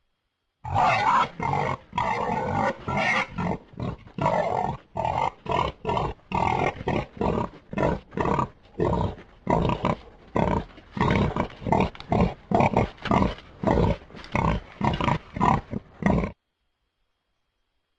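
Made-up creature sound effect for a glyptodon: a long run of short, rough animal calls, about two a second, that stops suddenly near the end.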